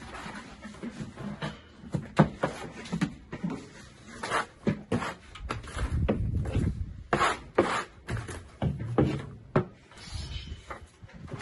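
Plasterer's trowel working mortar onto a wall: irregular scrapes and knocks, some a second or so apart.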